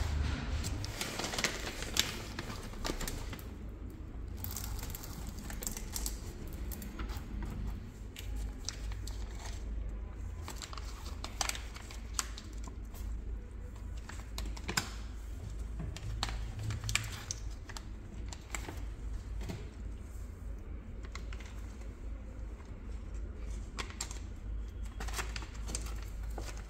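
Irregular light clicks and crinkling, scattered unevenly, over a steady low hum.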